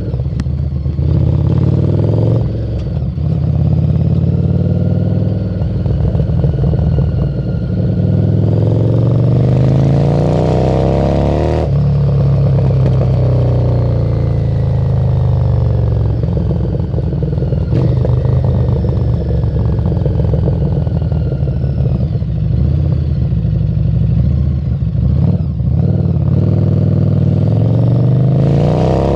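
Harley-Davidson Street 750 V-twin with a Screamin' Eagle exhaust, heard from the rider's seat while underway. The engine note rises in pitch several times as it accelerates, falling back between the runs.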